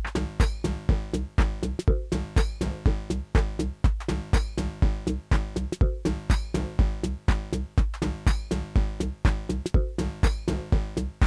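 Live techno played on hardware drum machines and analogue synthesizers: a steady, evenly repeating beat with a strong low kick and sharp percussive hits over a looping synth bass line.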